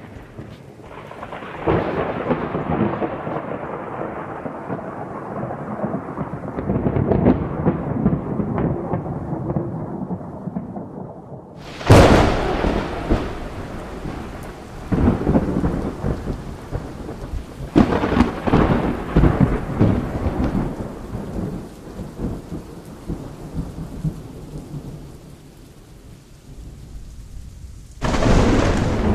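Thunderstorm: steady rain with rolling thunder, and a sudden loud thunderclap about twelve seconds in. More claps follow a few seconds later and again near the end.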